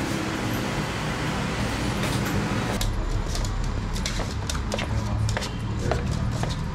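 Steady street and traffic noise with a low rumble, then from about three seconds in a quieter background with a run of small clicks and taps: footsteps and a dog walking on a hard floor.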